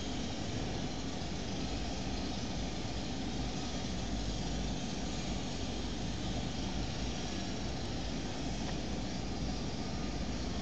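Steady background noise of the recording microphone: an even hiss with a low rumble underneath, unchanging throughout, with no distinct events.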